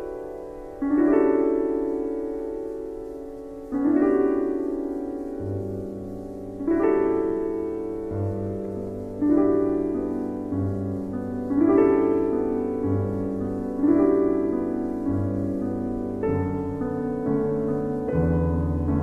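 Solo piano playing slow chords, a new chord struck about every two and a half seconds and left to ring away. A low bass line joins about five seconds in, and the chords come closer together near the end.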